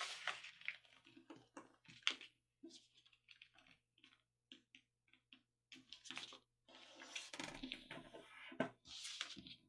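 A sheet of paper being folded by hand: faint rustles and short crisp crackles as the paper is shifted and the creases are pressed flat with the fingers, with more continuous rustling near the end.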